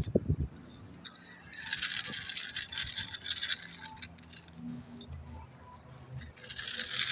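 Small die-cast toy truck's wheels rolling and scraping over rough concrete and a ramp, a gritty rattle in two stretches: about two seconds in, and again near the end.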